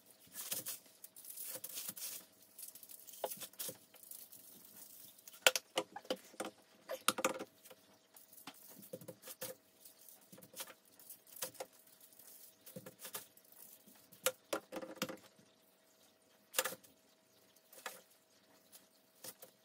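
Dry seasoning shaken from plastic shaker bottles onto a raw steak on aluminium foil: irregular light pattering of granules and rattling of the shakers, with a few sharper ticks.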